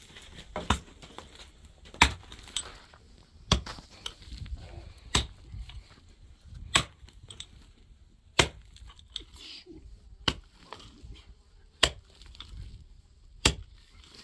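A pickaxe striking hard, stony dry earth, nine sharp blows at a steady pace of about one every second and a half.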